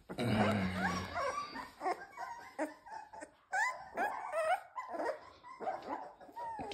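Three-week-old Rottweiler puppy whining and yelping in a string of short, high cries that rise and fall in pitch.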